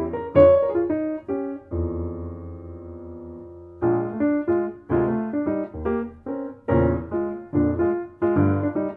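Piano playing an instrumental jazz piece: a run of short notes, then a chord held and left to ring out for about two seconds, before a rhythmic figure of short notes starts again.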